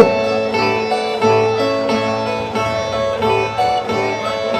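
Brazilian viola, a steel-strung folk guitar, plucked in an instrumental melody of ringing notes that change pitch every second or so.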